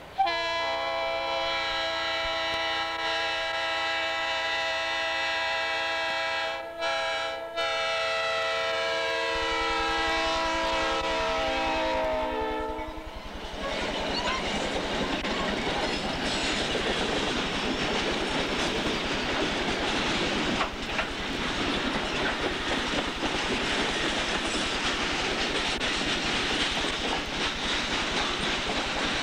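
Wisconsin Central diesel locomotive's multi-note air horn sounding for a grade crossing, held for about thirteen seconds with two short breaks about seven seconds in, then dropping in pitch as the locomotive passes close. After the horn stops, the locomotives and loaded coal cars roll by with a steady rumble and clickety-clack of wheels over rail joints.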